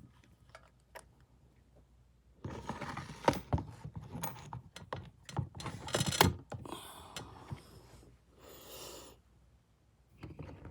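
Hands handling a dirt-bike carburetor and its parts: scattered light clicks and metal knocks with some rustling, two sharper knocks a few seconds apart.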